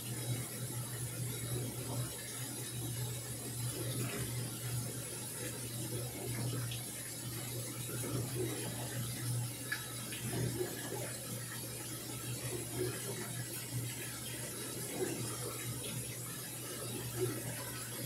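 Samsung top-load washing machine filling: a stream of water pours from the inlet into the drum and splashes onto the clothes, a steady rush with a constant low hum underneath.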